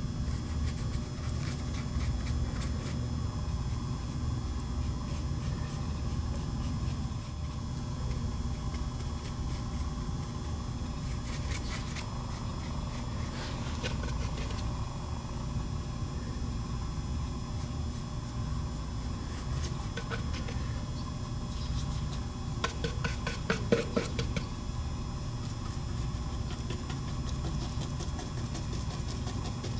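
A steady low machine hum, with a few light clicks and taps in the second half, the clearest about two thirds of the way through.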